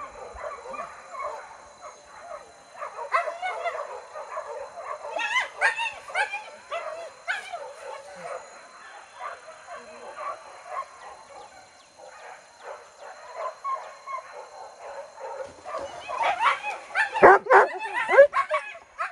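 Pack of hunting dogs yelping and baying on a wild boar chase, many high cries overlapping without a break. The cries grow loudest near the end.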